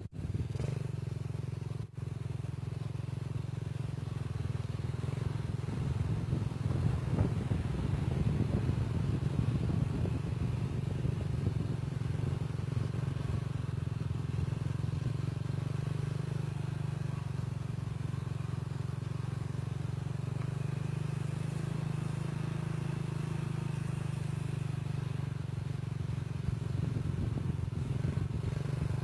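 A vehicle's engine running steadily at a low, even pitch as it drives along the sand.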